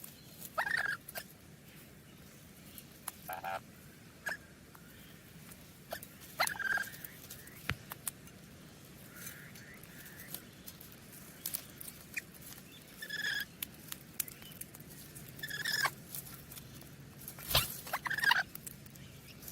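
Parrots giving short chirps and squawk-like calls, scattered irregularly with pauses between them, along with a few sharp clicks; the loudest calls come near the end.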